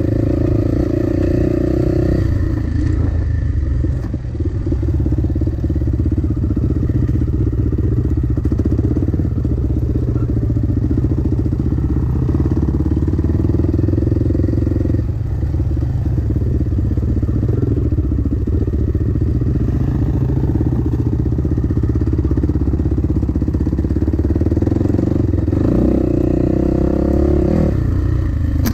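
Dirt bike engine running under way on a trail ride, its revs rising and easing off with the throttle, and climbing again near the end.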